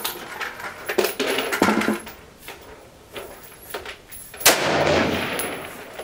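Rifle gunfire from a Sig 556 in 5.56 mm: several sharp cracks in the first two seconds, then a loud shot about four and a half seconds in that rolls off in a long echo.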